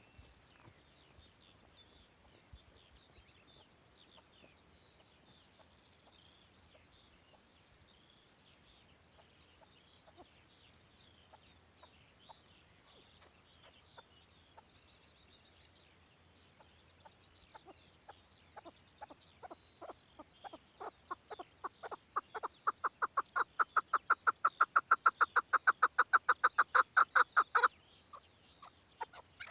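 Chukar partridge calling: a long series of clucking notes that builds steadily louder and faster to about four or five a second, then breaks off suddenly near the end. Faint high chirping sits under it throughout.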